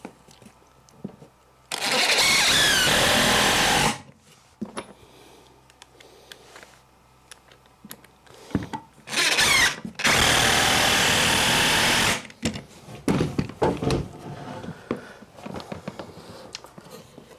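Cordless drill running in two spells of about two seconds each, driving screws into a wooden frame, its whine sliding in pitch as it works. Light knocks of boards being handled come between the spells.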